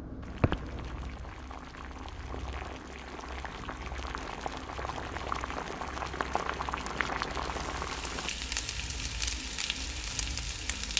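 Liquid bubbling and sizzling with dense, irregular crackling pops, like a pot at a rolling boil or hot oil. A single sharp click comes about half a second in, and the sizzling thins out a little after eight seconds.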